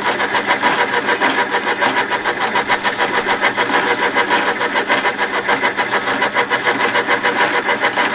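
Warco WM180 mini lathe running at 732 rpm with its gear cover off, the freshly cut 100-tooth Module 1 change gears meshing in the exposed gear train. It makes a steady mechanical clatter with a fast, even pulse.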